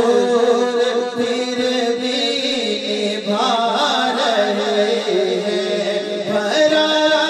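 A man singing an Urdu naat unaccompanied into a microphone, holding and bending long ornamented notes.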